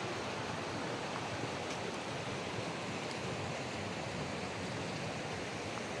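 Mountain creek rushing over rocks and small rapids: a steady wash of running water.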